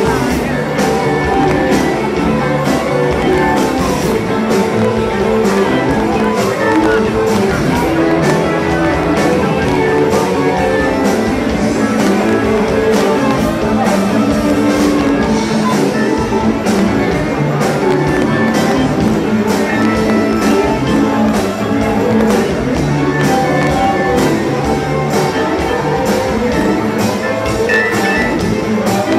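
Live rock band playing with a steady beat: electric guitar, drum kit and keyboard, with congas and a djembe.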